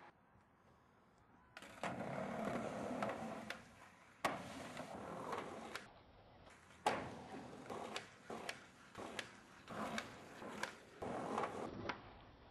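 Skateboard wheels rolling on a hard surface in several short runs, broken by sharp clacks of the board being popped and landing.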